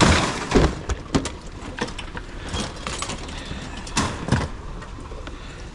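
Clanks, knocks and scrapes of sheet metal and plastic as an LG dishwasher is handled and pulled apart by hand, with a loud knock at the start, several more over the next two seconds, and another pair about four seconds in.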